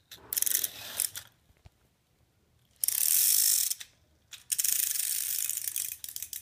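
K'nex micro roller coaster train running on the plastic track with a rattling, clicking clatter: short bursts in the first second, a loud steady rush about three seconds in lasting about a second, then a longer run of rattling from about four and a half seconds on.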